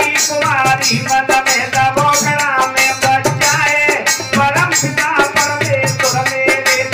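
Indian folk devotional music, instrumental passage: a pitched melody line with sliding notes over a steady hand-drum beat and the metallic jingling of a chimta (fire-tong jingles).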